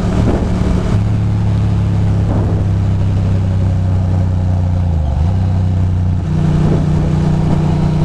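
Ducati Monster 620's air-cooled V-twin engine running while riding at road speed, with wind noise on the bike-mounted microphone. The engine note dips briefly about five seconds in, then settles at a steady pitch again.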